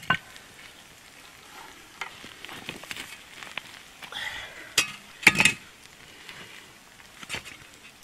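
Lamb roast sizzling in an open camp oven, a steady faint hiss, with a few sharp clicks and knocks as the pot is worked with a utensil, the loudest about five seconds in.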